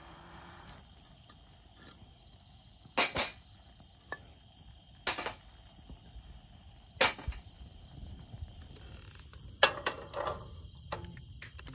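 Sharp clicks and knocks of camp cooking gear being handled and set down, a few single knocks a couple of seconds apart, then a quicker cluster and a fast run of small clicks near the end. A steady high-pitched insect drone runs underneath.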